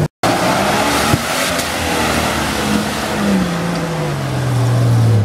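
Jeep Cherokee XJ's 4.0-litre straight-six engine running under load as the vehicle crawls across a steep slope, its revs falling steadily over the last two seconds, under a steady hiss. One sharp click about a second in.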